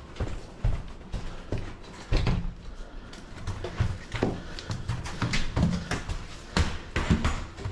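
Footsteps of people in ski and snowboard boots clomping across rubber entrance mats and a hard floor: irregular heavy thuds.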